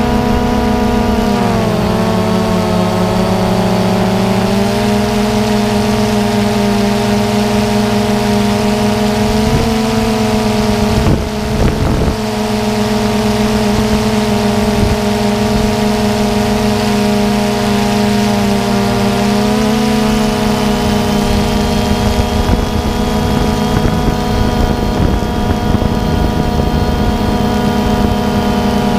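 Multirotor drone's motors and propellers heard from on board, a loud steady hum. Its pitch steps down slightly about a second and a half in and shifts again around twenty seconds, with a brief dip near eleven seconds.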